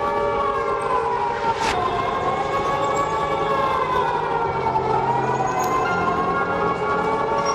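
Wailing siren of an emergency alert alarm, several tones sounding together. Its pitch drops abruptly with a click a little under two seconds in, then slowly rises and falls.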